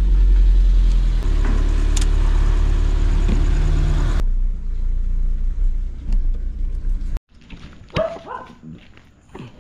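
Ford car engine idling just after a cold start, warming up, with a steady low rumble heard from inside the cabin. About seven seconds in it cuts off abruptly, and a dog then barks a few times.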